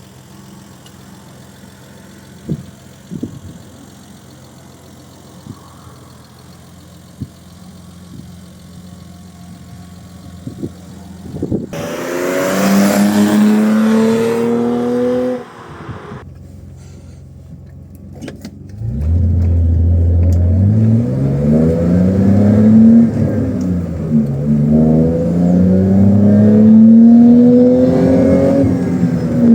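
1987 BMW E30 325i's 2.5-litre straight-six idling quietly with a few light clicks. About twelve seconds in it revs up, rising in pitch for a few seconds, then cuts off. From about nineteen seconds it pulls hard again with a rising pitch, dips once at a gear change, and climbs again, the pitch falling right at the end at another shift.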